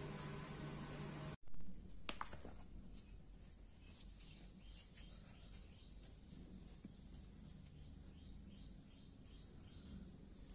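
Faint background ambience. A steady hiss and low hum stop abruptly about a second and a half in, followed by a single click. A quiet background follows, with scattered light clicks and faint, quickly repeated high chirps, most of them in the second half.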